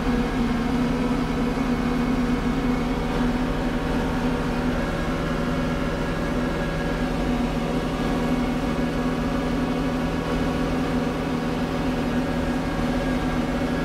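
Kubota Grand L4760 tractor's four-cylinder diesel engine running steadily while it drives a front-mounted snowblower that is throwing snow. It is heard from inside the tractor's cab as an even, unchanging drone.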